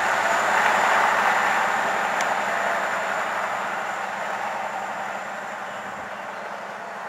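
High-speed diesel train (an HST) passing at speed and running away: a steady rush of wheel and rail noise that peaks about a second in, then fades steadily as the train recedes.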